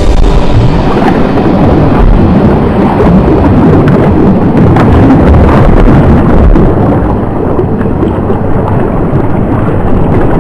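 Loud, rough rumbling noise of an action camera carried just above a shallow river: wind buffeting the microphone, mixed with water splashing around wading boots.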